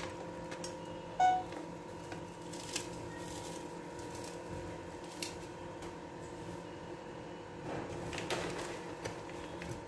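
Faint scattered clicks and light rustling from a hand sprinkling crumbled cheese into a frying pan, over a steady low hum. A brief pitched sound stands out about a second in.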